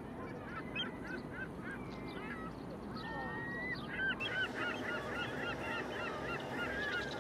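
Birds calling: many short, repeated calls that come thicker from about four seconds in, over a steady background hum.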